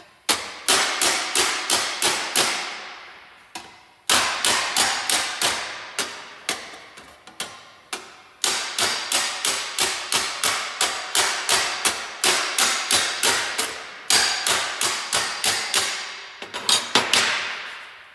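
Slapping file striking a welded sheet-metal panel held against a dolly, in four runs of sharp metallic blows at about three a second with short pauses between runs. This is slapping a low spot to shrink the panel back up.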